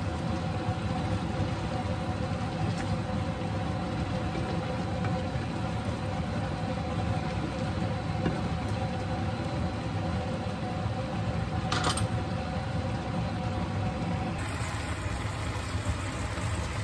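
Steady machine hum with a low rumble and two faint held tones, which drop away about fourteen seconds in. One brief sharp scrape-like sound near twelve seconds.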